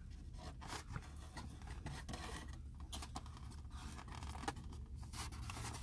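Faint scraping and clicking of a plastic fork working at food, scattered small ticks and rubs over a steady low hum.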